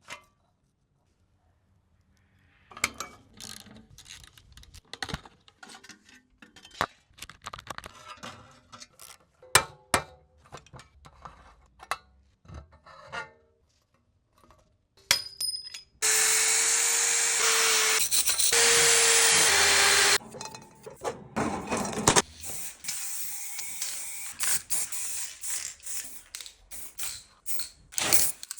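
Bicycle restoration work: a run of clicks, knocks and rattles from parts being handled and taken apart. About halfway through, a power tool runs loudly and steadily for about four seconds.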